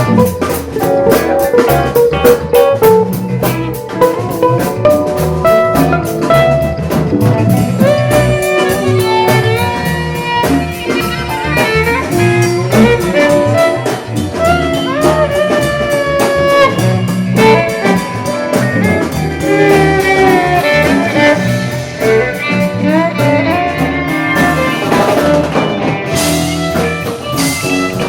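A small band playing a jazz-blues jam, with a drum kit keeping a steady beat under a lead melody that slides and bends between notes, and cymbals swelling near the end.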